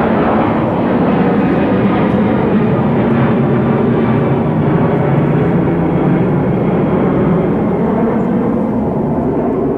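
Jet plane engines running steadily as the plane lands: a loud, even rumble with a faint hum in it, holding level without rising or falling.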